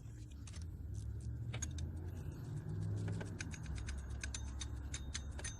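Ratchet wrench clicking as the 14mm bolt of the serpentine belt tensioner pulley is run down, a few scattered clicks at first and then a quick steady run of clicks over the last two seconds, over a low hum.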